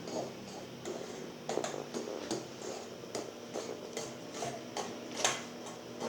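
A spoon stirring a thickening slime mixture of glue, shaving foam and boric acid water in a pot, with irregular clicks and taps of the spoon against the pot and one louder knock about five seconds in. The mix is being worked until it comes away from the pot and the spoon.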